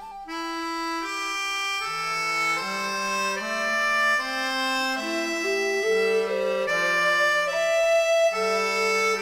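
Background instrumental music: a melody of held notes, each changing after about half a second to a second.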